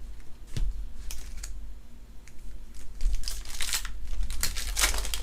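Trading cards and their packaging being handled: crinkling and rustling with a few short clicks early on, then a denser stretch of rustling in the last two seconds.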